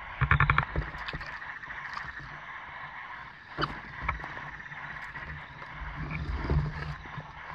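A hooked bass thrashing and splashing at the surface as it is pulled from the water, followed by a couple of sharp knocks from handling in the small boat, over a steady chorus of frogs.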